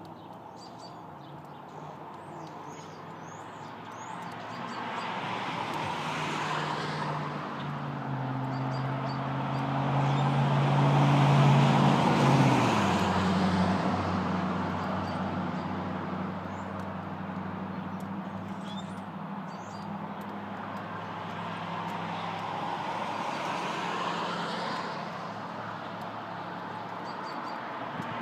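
A road vehicle passing by, its engine note dropping in pitch as it goes past about halfway through, followed by more passing traffic; small birds chirp faintly now and then.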